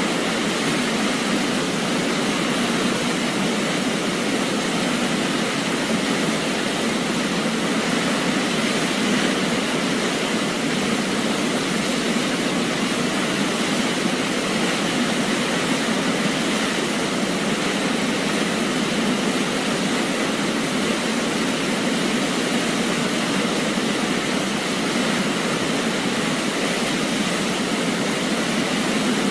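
Waterfall: the steady, unbroken rush of falling water, with very little deep rumble.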